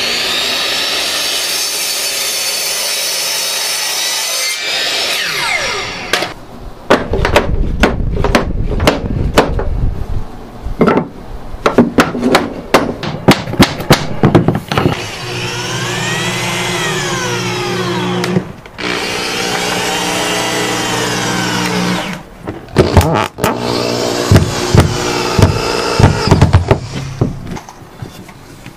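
Electric miter saw running and cutting through prefinished oak tongue-and-groove flooring, then winding down with a falling whine. Runs of sharp hammer taps follow as the cut pieces are knocked into place, partly through a wood tapping block. Between the taps the saw comes up to speed and winds down again several times.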